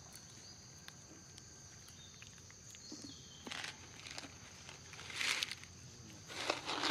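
Forest ambience: a steady high insect drone, with a few short rustling scuffs, the loudest about five seconds in.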